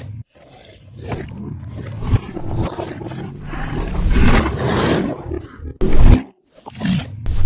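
A large animal roaring in a string of rough, loud calls with short breaks between them, the sharpest about six seconds in.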